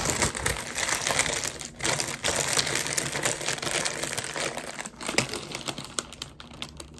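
Crinkly snack bag packaging being handled and folded shut: a dense, continuous crackling that tails off near the end.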